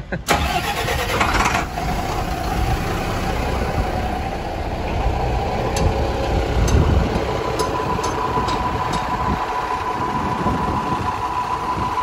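A BMC truck's diesel engine running steadily at idle. It comes in suddenly just after the start, and a thin steady whine joins it about two-thirds of the way through.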